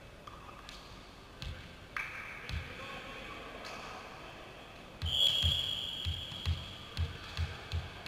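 A referee's whistle blows once about five seconds in, a single high steady tone. It is followed by a run of dull thuds, about two or three a second, from a volleyball being bounced on the court floor. The whistle is the volleyball signal to serve.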